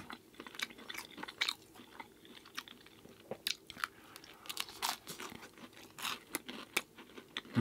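A person chewing food close to the microphone, with irregular wet mouth clicks and soft crunches several times a second.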